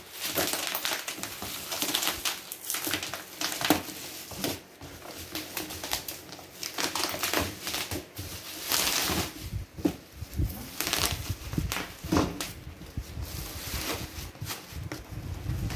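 Black plastic bubble wrap rustling and crinkling as it is pulled and torn off a cardboard oven box, with many irregular crackles. Near the end, dull knocks as the cardboard box is tilted and handled.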